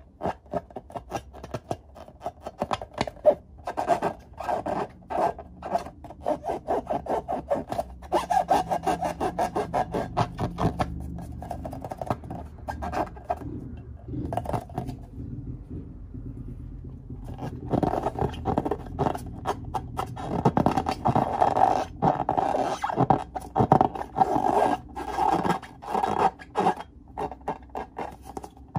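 Fingers rubbing and squeezing filled rubber balloons: quick repeated rubbing strokes against the latex, with a pause of a few seconds about halfway through.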